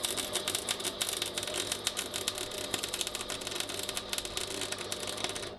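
MIG welder's arc crackling and sizzling steadily as a bead is run on a steel bar of a grate, cutting off abruptly at the end as the trigger is released.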